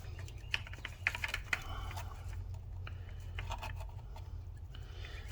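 Irregular light clicks and snaps of pliers working at heavy nylon zip ties to cut them shorter: the ties are tough and hard to cut. A steady low hum runs underneath.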